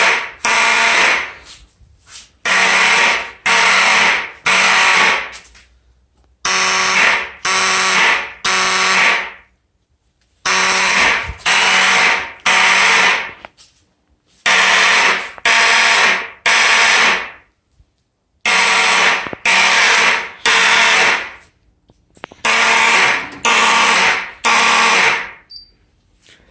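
Several old fire alarm horns sounding together in the code-3 temporal pattern: three raspy blasts, a pause of about a second, then three more, repeating about every four seconds. The harsh, rough tone is typical of these worn vintage horns.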